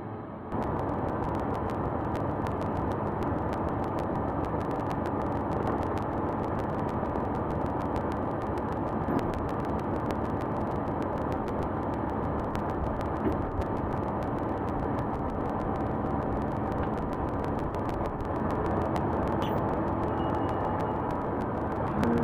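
Claas Jaguar 970 forage harvester's diesel engine running steadily; the sound gets a little louder near the end as the machine backs away from its unhooked header.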